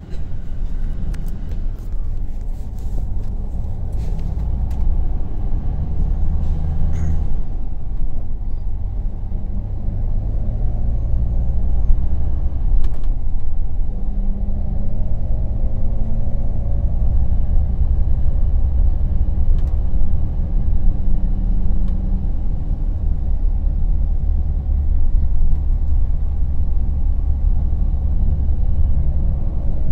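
Temsa Safir Plus coach's diesel engine running, a steady low rumble heard from inside the passenger cabin. A few sharp clicks come in the first several seconds.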